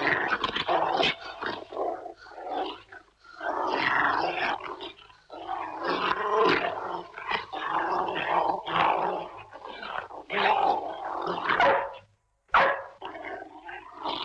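Doberman growling and barking in repeated rough bursts, some drawn out for about a second, with a brief break near the end before a sudden loud burst.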